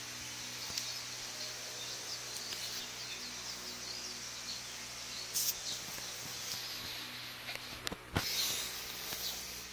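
Steady hiss and low hum, broken by rustling and two sudden knocks from a phone being handled and moved over bedding, about five and eight seconds in.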